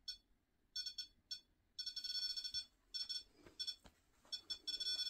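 Electronic beeper of a handheld ghost-hunting meter sounding in irregular short and long bursts of a steady, high, buzzy tone.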